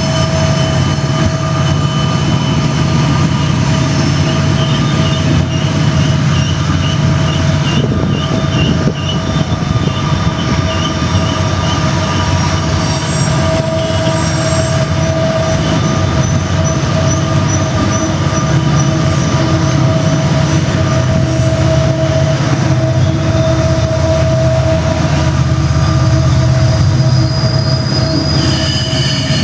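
SD70ACU diesel helper locomotives working under load, their engines running with a loud, steady turbocharger howl. Mixed in are steady high-pitched squeals, at times warbling, from freight-car wheels grinding around the curve.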